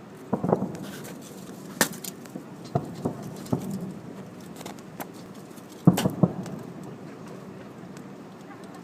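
Fireworks going off: a string of irregular bangs and pops, about ten of them, each followed by a short echoing tail, with the loudest three coming close together about six seconds in.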